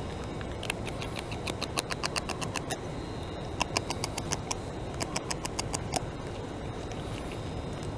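North American beaver chewing leaves and twigs up close: rapid, crisp crunching clicks, about five or six a second, with a brief pause near the middle, easing off about three-quarters of the way through.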